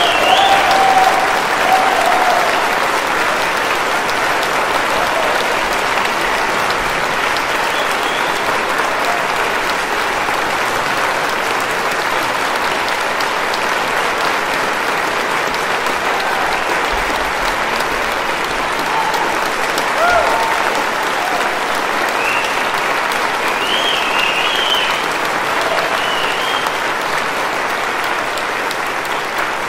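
Long, steady applause from a concert audience and the orchestra on stage, with a few voices calling out near the start and again after about twenty seconds.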